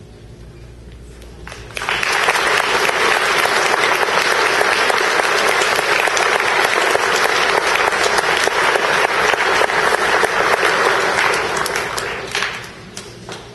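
Audience and choir applauding: dense clapping that starts suddenly about two seconds in, holds for about ten seconds, then tapers off to a few last claps near the end.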